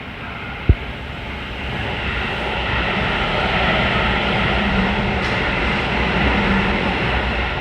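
Keihan Main Line electric train running past, a rushing rumble that swells from about two seconds in and begins to fade near the end. A single sharp thump comes just under a second in.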